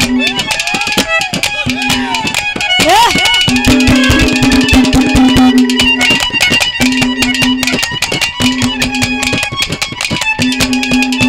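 Haryanvi ragni folk band playing an instrumental interlude: a melody instrument holding long repeated notes over fast hand-drum and percussion strokes.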